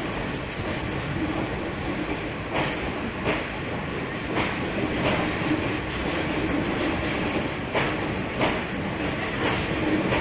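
Passenger train rolling along the track: a steady rumble from the coaches, with wheels clacking over rail joints at uneven intervals.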